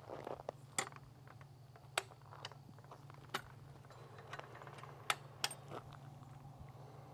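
Faint sharp metal clicks and clacks, a handful spread irregularly about a second apart, as the sign stand's kick releases are kicked open and its steel legs swing out and drop into place, over a steady low hum.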